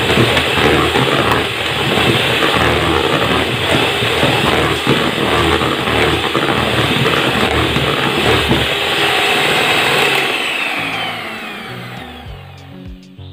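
Electric hand mixer running at high speed, its beaters whipping a thick egg, sugar and emulsifier batter in a plastic bowl until it turns pale and fluffy. About ten seconds in it is switched off, and its whine falls in pitch and fades as the motor spins down.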